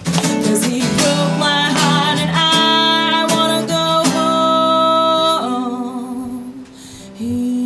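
A live bluesy song's instrumental break: guitar chords strummed and left ringing. The playing thins out and quietens about six seconds in, then a held low note comes in near the end.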